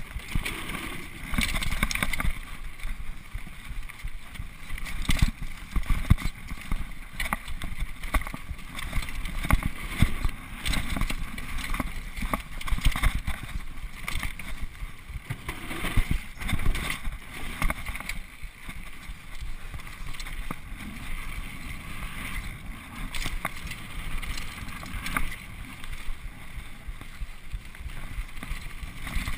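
Onboard sound of an Xprezo Furax mountain bike descending a dirt trail at speed: a continuous rush of air and tyre noise with frequent irregular rattles and knocks from the chain, frame and suspension over the bumps.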